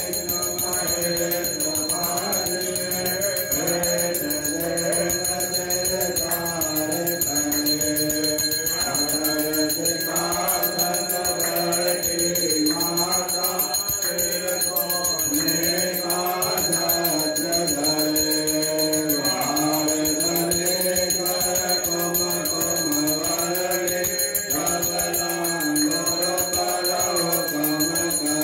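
Devotees singing a Hindu aarti hymn together, with a temple bell ringing continuously over the singing.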